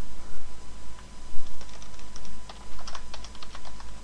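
Typing on a computer keyboard: a quick run of keystrokes that starts about a second and a half in.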